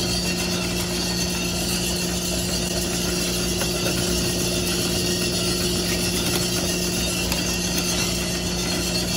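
Multi-barrel drum sample coffee roaster running, a steady mechanical hum with a low drone that does not change.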